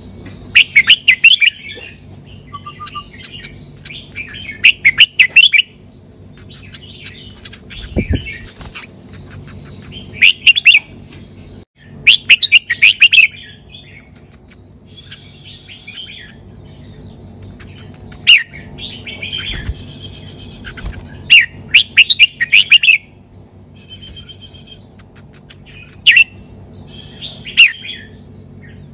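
Caged red-whiskered bulbul singing: short, loud, bubbly song phrases repeated every few seconds, with fainter chirping in between.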